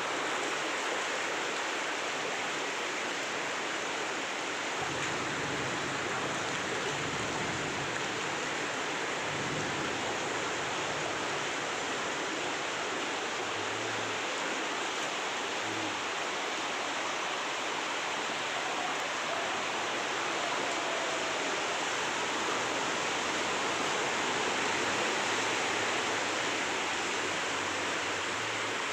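Heavy tropical downpour: rain pouring steadily as a dense, even hiss.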